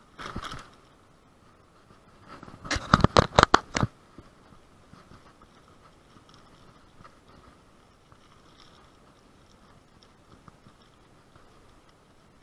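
Sharp clattering knocks of a bicycle and its mounted camera jolting over rough, cracked pavement: a short burst at the start, then a louder run of about eight rapid knocks from about two to four seconds in. In between, only a faint steady hiss.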